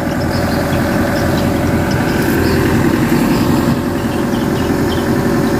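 Sumitomo S265F2 crawler excavator's diesel engine running steadily.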